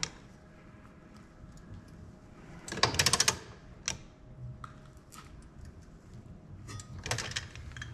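Torque wrench ratcheting in quick bursts of rapid clicks, once about three seconds in and again near the end, with a few scattered metallic knocks between, as a bolt is torqued down.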